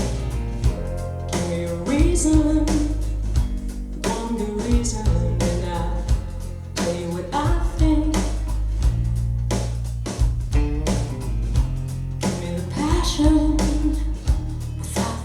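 A song with a singing voice, guitar, bass and drums, played back through a computer USB audio chain with an AudioQuest JitterBug USB noise filter in line.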